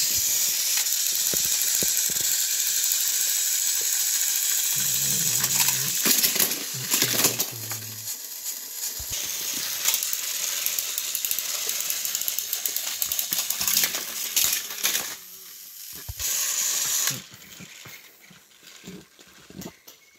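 Battery-powered toy trains running on plastic track, a steady rattling hiss of motors and wheels that stops at about 15 seconds and comes back briefly a second or so later.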